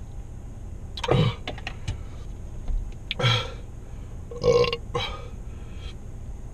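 A man belching three times, short throaty burps about every second and a half, just after gulping carbonated cola.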